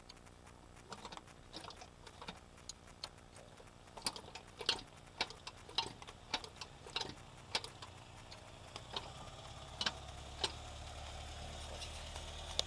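VAG AAM 1.8 four-cylinder petrol engine running with a sharp, repeating knock: the engine knock the owner is recording. The knocks come a little under two a second, and the engine note rises about two-thirds of the way through as the engine is revved.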